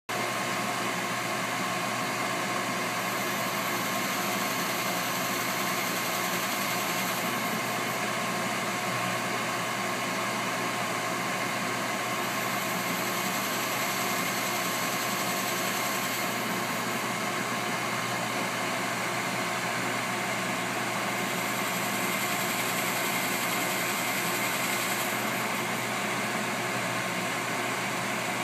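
EMCO 5 PC CNC lathe running while roughing out a part: a steady machine hum with several fixed tones, and a high hiss that comes in for about four seconds roughly every nine seconds.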